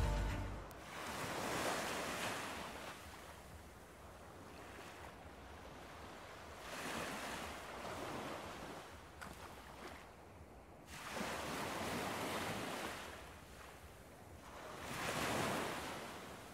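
Faint ocean waves washing in: a soft rush that swells and falls away four times, about every four to five seconds.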